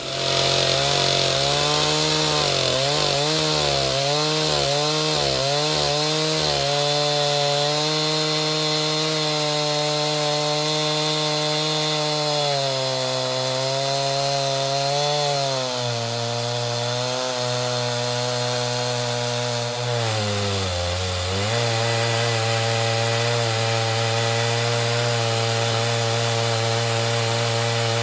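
Chainsaw running at high, steady speed while ripping a pine log lengthwise in a chainsaw mill. Its pitch wavers in the first few seconds and sags briefly twice as the engine bogs under the cut.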